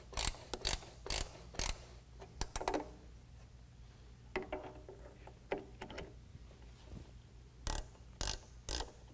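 A half-inch ratcheting wrench clicking in quick strokes, about two a second, as spin nuts are snugged down onto the plastic pegs of a running-board end cap. The clicking stops for a few seconds in the middle while the wrench moves to the other nut, then starts again near the end.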